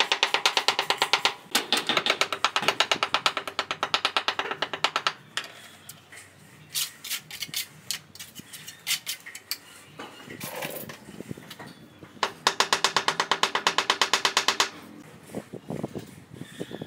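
Rapid, even tapping on ceramic floor tiles, about eight ringing taps a second, in two runs: one stopping about five seconds in and another starting about twelve seconds in. Between the runs come scattered single clinks and scrapes of a trowel on tile and mortar.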